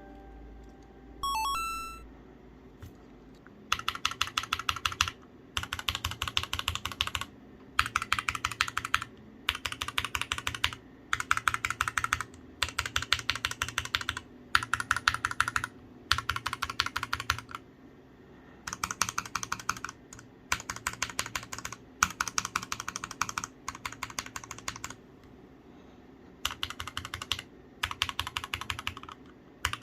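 Fast typing on an Akko MOD007 gasket-mount mechanical keyboard with MMD Ice Cream full-POM switches, in bursts of about a second and a half with short pauses between. A few short rising electronic tones sound just before the typing starts.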